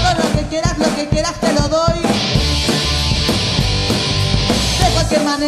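A rock band playing: electric guitar, bass and drums with a steady beat, and a lead voice singing in Spanish for the first couple of seconds, then an instrumental stretch, with the singing coming back near the end.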